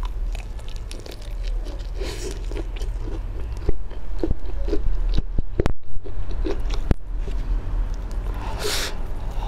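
Close-miked crunching bites and chewing of a deep-fried chicken drumstick's crispy coating, with sharp crackles and clicks that are thickest and loudest about four to seven seconds in. A steady low hum runs underneath.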